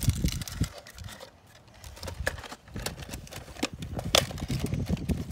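Wind buffeting the microphone in uneven low rumbles, with a few sharp clicks and rustles of a folded paper slip being handled. The loudest click comes a little past four seconds in.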